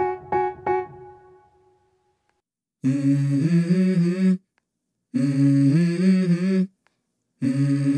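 Background music: a keyboard riff of quick repeated notes dies away in the first second, then after a short silence three hummed vocal phrases of a new song come in, each about a second and a half long and stepping between held notes.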